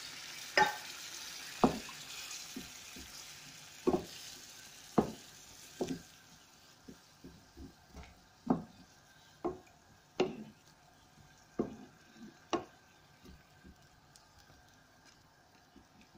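Wooden spoon stirring chicken curry in a pan, knocking against the pan at irregular intervals over the sizzle of the simmering sauce. The sizzle fades after about six seconds.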